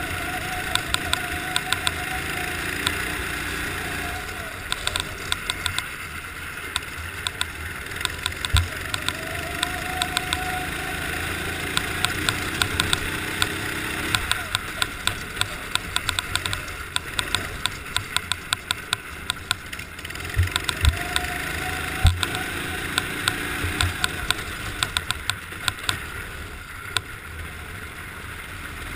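Racing kart's engine heard from on board, its pitch rising and falling repeatedly as it accelerates and backs off on an icy track. Many sharp clicks and knocks run over the engine, thickest in the middle stretch.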